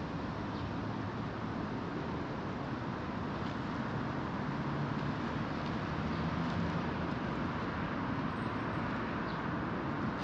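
Steady hum of city road traffic, with a low engine drone swelling a little in the middle.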